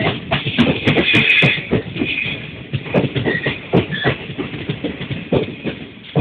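Wheels of a passing train clacking over rail joints and points: a rapid, irregular run of knocks with brief high squeals about three and four seconds in.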